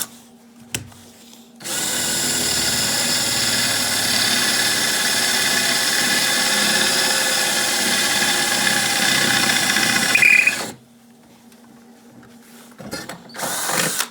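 Handheld electric power tool running steadily for about nine seconds with a high motor whine, then cutting off, followed by a short second burst near the end.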